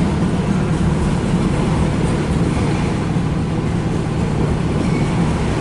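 Freight cars of a long CN train rolling past, a steady low rumble of steel wheels on the rails.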